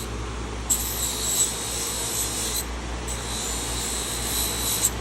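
Electric grinder running with a steady hum while a rusty carbon-steel knife blade is pressed against the spinning wheel twice, each pass a high scraping of about two seconds, to strip the rust off.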